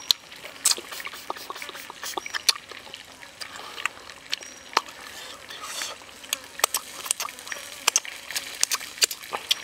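Close-up mouth sounds of eating grilled chicken wing: wet chewing and lip smacks, heard as irregular sharp clicks several times a second.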